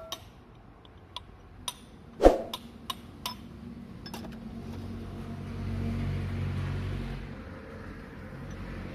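Scattered sharp metallic clicks and knocks from work on an automatic transmission, the loudest about two seconds in. A low rumble then swells and fades between about four and a half and seven seconds.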